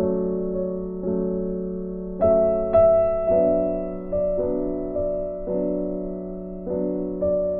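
Slow, soft background music on a piano-like keyboard, single notes and chords struck about once a second and left to ring out.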